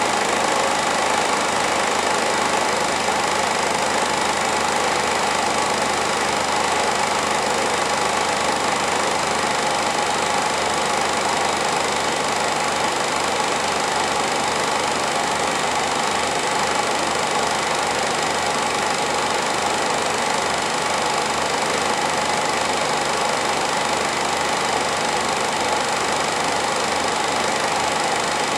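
Home-movie film projector running: a steady mechanical whir with a fast, even clatter of the film advancing through the gate.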